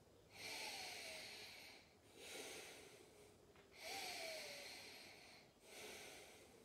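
A person breathing slowly and audibly in a yoga pose, four deep breaths of about a second and a half each, each with a faint falling whistle.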